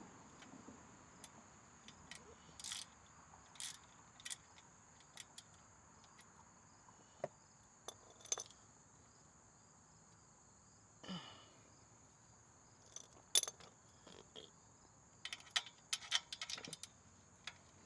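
Scattered light metallic clicks and taps of hand tools being worked at a car's oil drain plug, with a quick run of clicks near the end. A faint steady high whine sits underneath.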